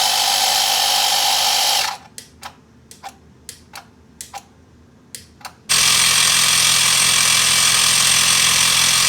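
An electric air compressor pumping butane in a DIY refrigerator circuit, running with a loud steady buzz that stops about two seconds in. A few seconds of scattered light clicks follow, then the compressor runs again and cuts off suddenly near the end.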